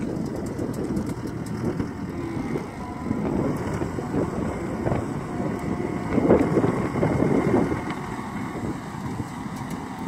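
Diesel engine of a John Deere 333E compact track loader running under load while its backhoe attachment digs. The sound is a steady rumble that swells louder for a couple of seconds about six seconds in.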